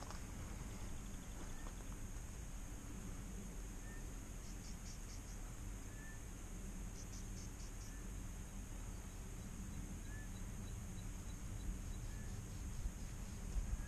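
Insects chirring in dry bush: a steady high drone, with two short pulsed trills about four and seven seconds in. A few faint short chirps and a low wind rumble sit underneath.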